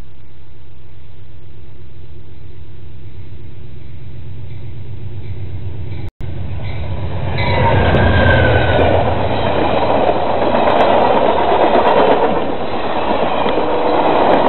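Amtrak passenger train approaching and then passing close by: a steady low rumble as it nears, then from about seven seconds in the diesel locomotive and its coaches go by loudly with wheel-on-rail rumble and rattling and a brief high squeal. The sound drops out for a split second about six seconds in.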